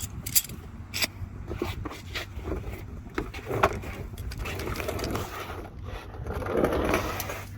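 Scraping, shuffling and scattered clicks and knocks of someone getting under a vehicle and handling parts, with a louder spell of scraping near the end.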